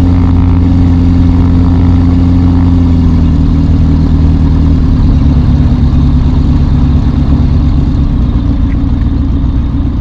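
Rotax 912 ULS four-cylinder boxer engine and propeller of a Skyreach BushCat light sport airplane running loud and steady at high power for the departure.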